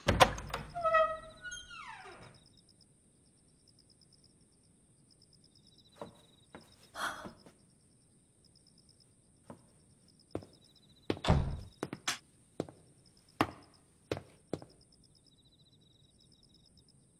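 A key turns and the lock clunks, then the apartment door creaks open on its hinges. After that, crickets chirp faintly while scattered footsteps and knocks sound on a hard floor between about six and fifteen seconds in.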